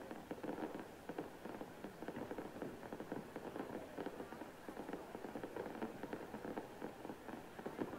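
Fireworks crackling: a dense, continuous patter of many small pops with no single big bang.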